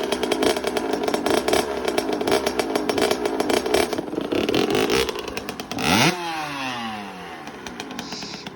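Kawasaki KX85 two-stroke dirt bike engine running with a rapid crackling beat, then revved sharply about six seconds in, the revs falling away as the sound fades.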